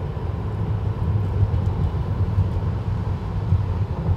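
Steady low rumble of background noise, unchanging, with no distinct knocks or rising and falling motor sound.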